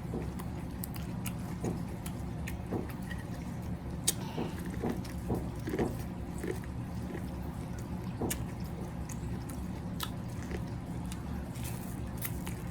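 Close-miked eating sounds from a seafood boil: scattered wet smacks, bites and chewing clicks over a steady low hum.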